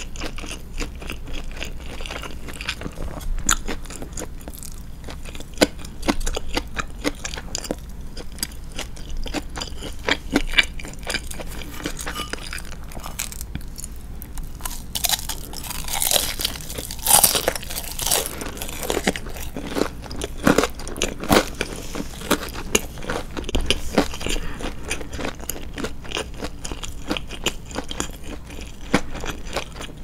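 A person chewing breaded fried cutlet and rice: many small crunches of the breading, which is not very crisp, with a louder cluster of bites about halfway through.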